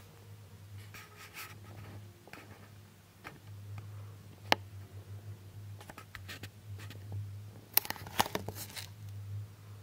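Light handling noise: scraping and rustling, with one sharp click about four and a half seconds in and a quick run of clicks near the end, over a steady low hum.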